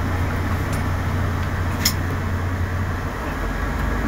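Tour bus engine and road noise heard from inside the cabin: a steady low drone under a rushing haze. There is a single sharp click about two seconds in, and the engine note drops lower a little after three seconds.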